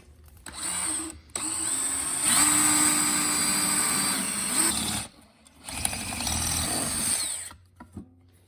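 Electric drill running in three bursts, the middle one the longest, boring holes through a metal reinforcement plate where spot welds will go.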